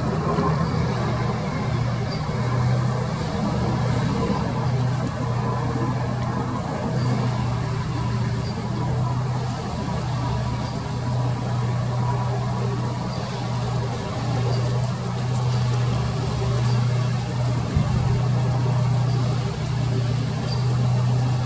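Steady low engine rumble with a constant deep hum, holding level without clearly rising or falling.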